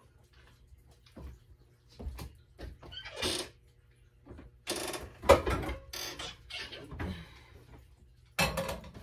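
Metal pots and pans clattering and knocking in a lower kitchen cabinet as a saucepan is pulled out, loudest about five seconds in. Near the end comes a sharp clank as the saucepan is set on the electric stove's coil burner.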